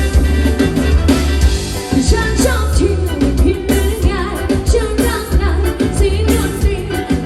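Pop song with a band: a steady heavy bass and drum beat, and a singer's voice carrying the melody, coming in about two seconds in.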